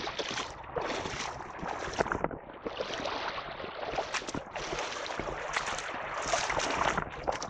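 Small waves washing over a pebble-and-cobble beach, with scattered sharp clicks of stones throughout.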